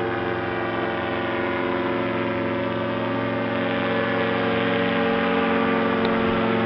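Solo 210 single-cylinder two-stroke paramotor engine running steadily at an even pitch, growing slightly louder about four seconds in.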